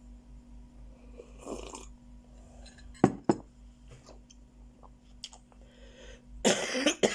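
A sip from a china cup, then two sharp clinks about three seconds in as the cup with a spoon in it is set down, and a loud breathy sound from the drinker's mouth and throat near the end.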